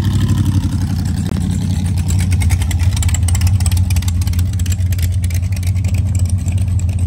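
A vehicle engine running steadily with a loud, even low note and rapid firing pulses, holding at about the same speed.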